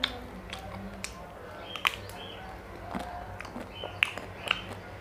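Close-up eating sounds of a chocolate-coated ice cream bar: sharp cracks and clicks as the thin chocolate shell breaks and is bitten, a few seconds apart, over wet mouth sounds.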